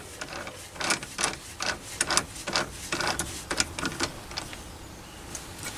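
A chuck key turning the jaws of a mini lathe's self-centring chuck: a run of metal clicks, about two or three a second, stopping about four and a half seconds in.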